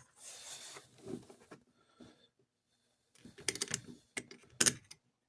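Small clicks and scrapes of a tool working at gunk in a Lionel F3 locomotive's motor truck. There is a soft scraping in the first second, a brief pause, then a run of sharp little clicks in the last couple of seconds.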